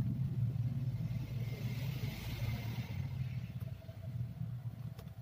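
Low rumble of a passing motor vehicle, fading away, with a brief hiss about two seconds in.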